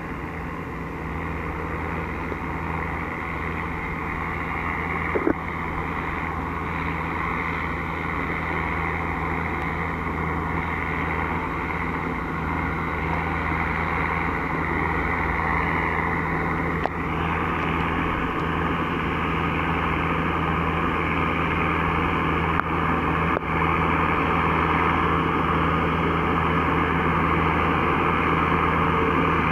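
New Holland T5060 tractor's four-cylinder diesel engine running steadily under load as it pulls a Lemken cultivator through stubble, a constant drone that grows gradually louder as the tractor approaches.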